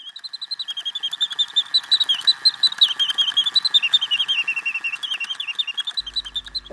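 The automaton song of an 1820 singing bird pistol attributed to Frères Rochat: a mechanical bird whistle warbling in rapid chirps and trills, with a steady faint tone underneath. Piano music comes in near the end.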